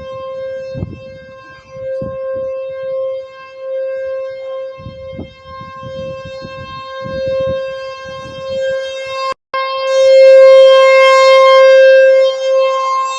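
T-128 rotating outdoor warning siren sounding a steady tone, holding one pitch. Its loudness swells and fades every second or two as it rotates. Low rumbling noise sits underneath, and just past halfway there is a brief dropout, after which the siren is louder.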